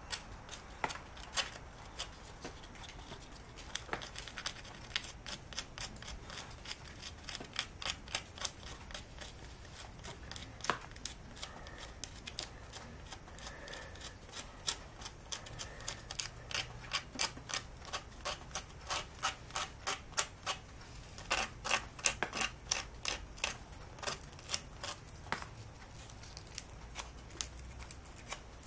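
Sandpaper rubbed by hand over plastic in short, irregular strokes, a scratch or two a second, quickening a little past the middle: roughening the plastic's surface before gluing it.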